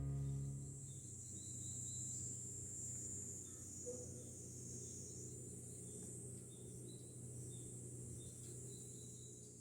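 Insects, cricket-like, chirping: a steady high trill with short, higher chirps repeating every second or so, faint throughout.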